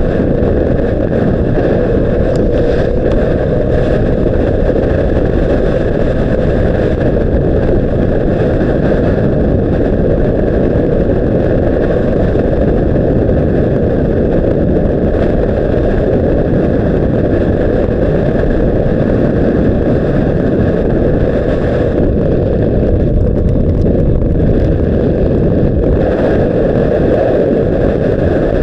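Steady roar of a Honda CBR600RR ride: wind buffeting the action camera's microphone over the inline-four engine's drone at an even pace, with no revving up or down.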